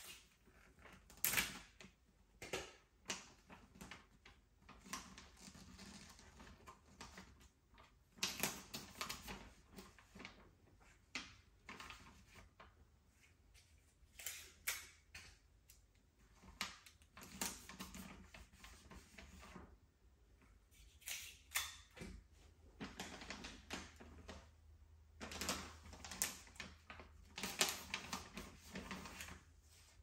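Soft sounds of gift wrapping: wrapping paper rustling and crinkling in irregular bursts, with sharp taps and clicks between quieter stretches. A faint low hum sits underneath.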